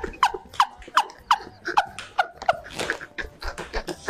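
A woman laughing hard, in rapid breathy bursts that each fall in pitch, about three a second.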